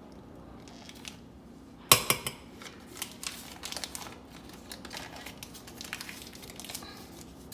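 A sharp knock on a stainless steel saucepan about two seconds in as a pat of butter goes into it, followed by the crinkling of the paper butter wrapper being folded and handled.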